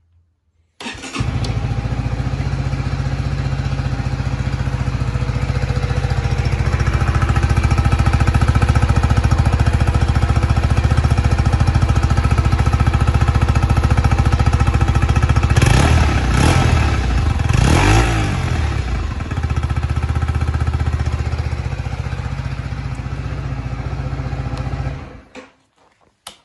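Honda CB125R's 125 cc single-cylinder four-stroke engine starting up about a second in, then idling steadily. Two or three quick throttle blips come about two-thirds of the way through, before it settles back to idle and is switched off near the end.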